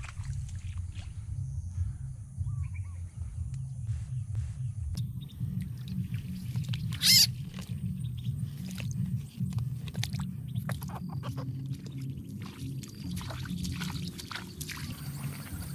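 Low, continuous croaking of frogs, with scattered clicks and knocks as frogs are handled and dropped into a woven bamboo basket; one sharp knock about seven seconds in.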